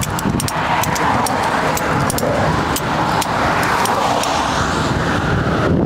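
Steady road-traffic noise with a string of sharp, irregular metallic clicks and clinks.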